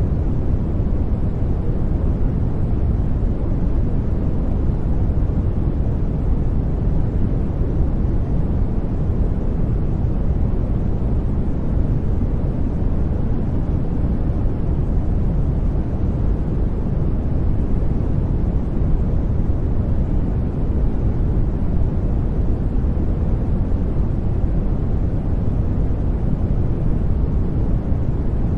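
Steady background noise of the kind sold as 'white noise', deep and rushing, heaviest in the low end and unchanging, with no distinct events.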